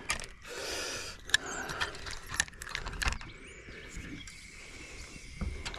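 Fishing tackle being handled: scattered sharp clicks and light rattles, with a short rustle about half a second in.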